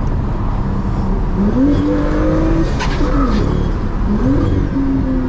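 Car engine heard from inside the cabin, revving up hard twice: each time the pitch climbs, holds for about a second, then drops as the throttle lifts, over a constant rumble of engine and road noise.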